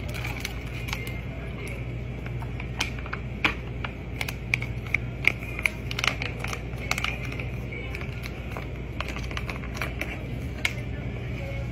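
Drink poured from a pouch into a plastic cup of ice, then a plastic pouch being opened and crinkled. Ice cracking and clinking and plastic crackling make a run of sharp clicks, densest in the middle, over a steady low hum.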